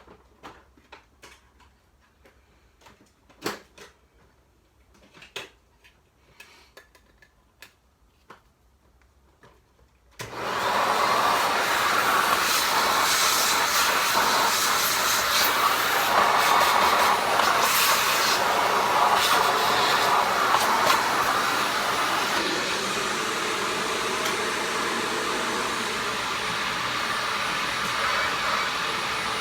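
A few light clicks and knocks of handling, then about ten seconds in a Hoover WindTunnel upright vacuum cleaner's motor is switched on and runs steadily.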